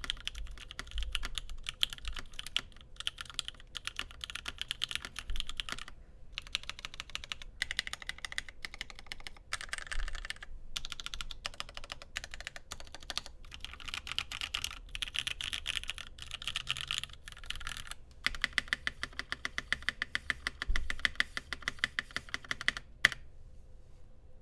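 Typing on a Cannon Keys Satisfaction75 custom mechanical keyboard with a full carbon-fibre plate, burger mount, OP Black switches and GMK Botanical keycaps: fast runs of keystrokes with short pauses between them. The typing stops with one last sharp keystroke shortly before the end.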